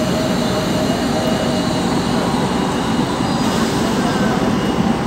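ČD class 754 'Nurek' diesel-electric locomotive running while standing at the platform with its passenger train: a steady, continuous low rumble with a few faint steady tones above it.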